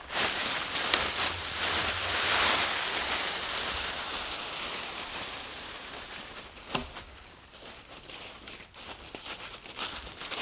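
Dry fallen leaves rustling and crunching underfoot as a dead log is lifted and dragged away through the leaf litter. The sound is loudest a couple of seconds in and fades as it moves off, with a sharp knock about a second in and another about two-thirds of the way through.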